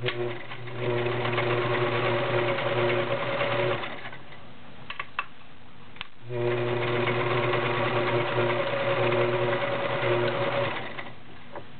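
All-metal Kenmore model 1947 electric sewing machine running and stitching, set back to straight stitch, in two runs of about four seconds each. Between the runs there is a short pause with a few light clicks.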